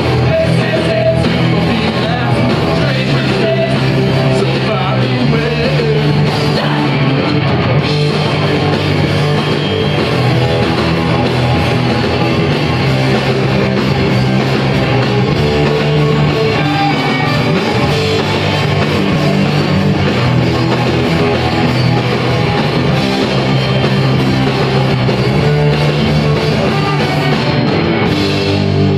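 Loud live punk rock from a band on stage: distorted electric guitars, bass and drums playing without a break.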